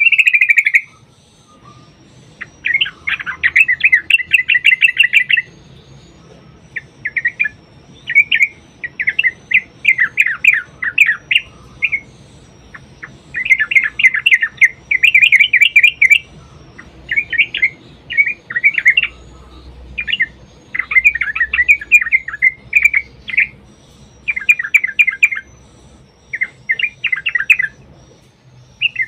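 Yellow-vented bulbul singing its long rapid rolling song, phrase after phrase of fast bubbling, chattering notes with short pauses between.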